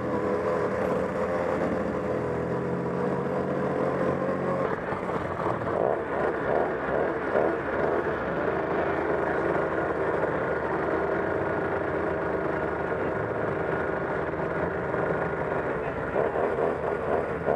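Small two-stroke engine of a Go-Ped motor scooter running steadily, its pitch dropping a little about four to five seconds in.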